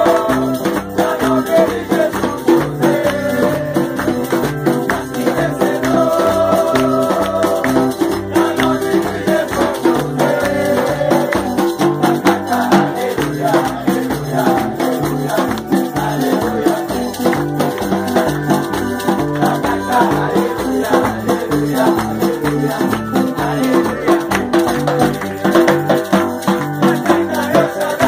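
Live worship band playing an upbeat song with a steady beat: a tall hand drum, an electric keyboard and an electric guitar, with the congregation singing and clapping along.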